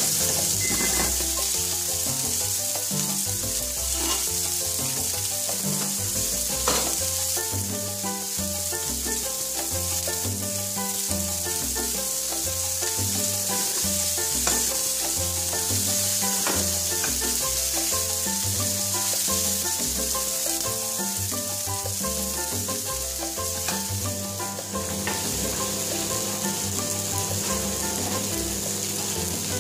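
Cod fillet, tenderstem broccoli and capers sizzling in olive oil in a frying pan, a steady sizzle with a few brief pops. Background music plays underneath.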